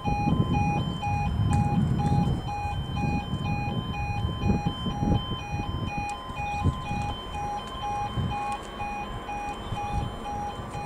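Level crossing warning alarm sounding a steady two-tone warble that alternates evenly between a lower and a higher pitch. Under it is a low, gusty rumble that is strongest in the first half.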